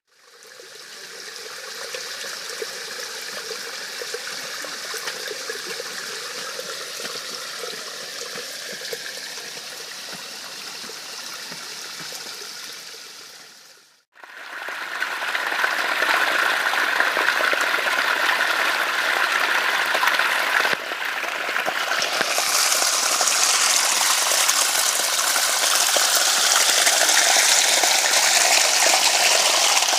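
Running water in garden water features: a steady, softer flow that fades out about halfway, then a second, louder rush of splashing water that grows brighter and fuller a few seconds later.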